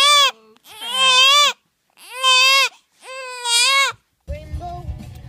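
A four-week-old baby crying hard in four wails, each under a second long, its pitch rising and then falling, with short breaths between them. About four seconds in, the cry cuts off to the steady low rumble of a car interior.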